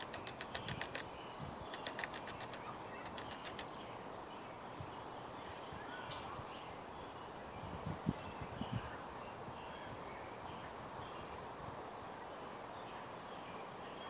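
Small songbirds calling: three short bursts of rapid high chattering in the first four seconds, then scattered faint chirps, over steady background hum. A few low thumps about eight seconds in.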